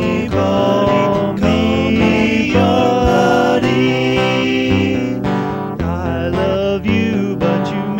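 Music: a song with guitar.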